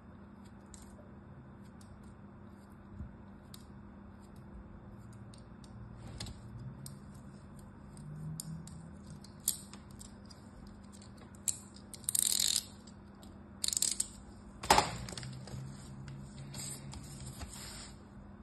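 Kinetic sand crumbled and pressed by hand: faint crackling and crunching with small ticks, then a few louder scrapes in the second half and one sharp tap, the loudest sound, a little past two-thirds of the way through.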